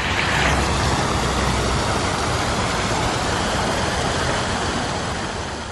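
Water cascading down a stacked-stone fountain into its pool, a steady rush of splashing water that fades down near the end.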